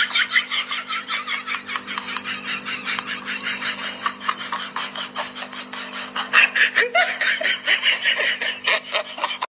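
A person laughing hard and without a break, in quick rhythmic pulses of about five a second, over a steady low hum.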